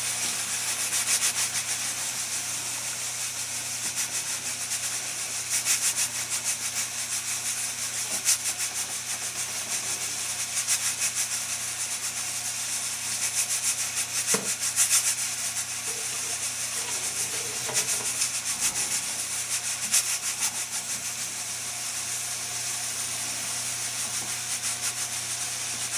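Mirro-Matic 16 pressure cooker at full pressure, venting steam at its regulator in a steady high hiss with a fast, uneven flutter. This is the sign that the cooker is holding about 15 psi.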